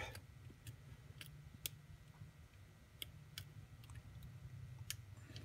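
Faint, irregular clicks of a pick and tension wrench working the pins of a pin-tumbler lock during single-pin picking.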